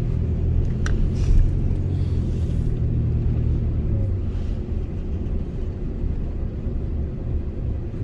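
Truck engine running with low road rumble. The steady engine hum turns to a rougher rumble about halfway through, and there is a single sharp click about a second in.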